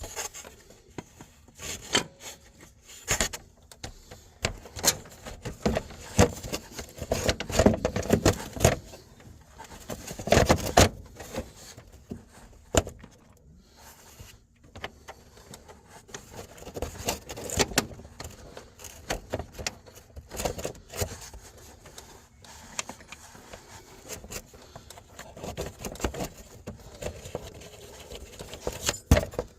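Irregular clinks, knocks and scrapes of hand tools and metal parts being handled while working on a truck engine bay, with a few louder clanks.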